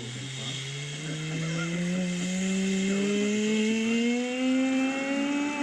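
A motor or engine running with a steady tone that climbs slowly and evenly in pitch, like a machine speeding up.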